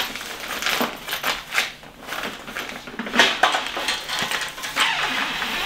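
Handling noise from a 4moms baby swing's fabric-covered seat and plastic frame being worked onto its base: irregular rustling with scattered clicks and knocks.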